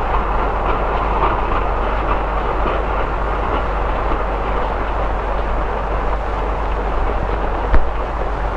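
A train running past in the rain: a steady rushing rumble of wheels and rain, with one sharp knock near the end.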